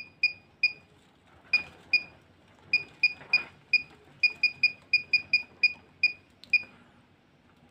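Handheld e-PoS terminal beeping once for each key pressed as a login password is typed on its keypad: about twenty short, high beeps at an uneven typing pace, with a short pause after the first three.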